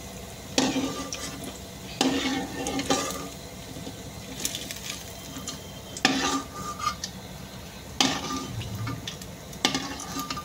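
Steel spatula scraping and clinking against a metal kadhai as deep-fried marinated meat pieces are lifted out of hot oil, which sizzles steadily underneath. Several sharp scrapes and knocks, a second or two apart.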